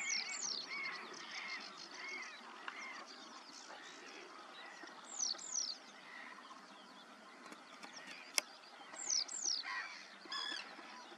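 Several wild birds calling: a pair of high, falling whistles comes three times, among scattered softer chirps, and a single sharp click sounds about eight seconds in.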